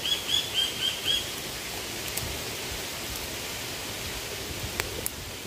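Coconut oil poured in a thin stream into a clay pot, a steady hiss of liquid. A bird chirps about six times in quick succession in the first second, and two sharp clicks come near the end.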